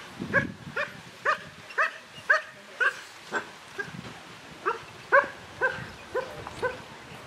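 German Shepherd giving a steady run of short, high-pitched yelping barks, about two a second, each rising then falling in pitch.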